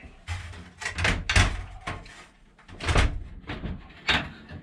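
Irregular knocks and thumps as an attic ladder unit's wooden frame is shifted and bumped into position in the ceiling opening, about six sharp knocks, the loudest about a second and a half in and near three seconds.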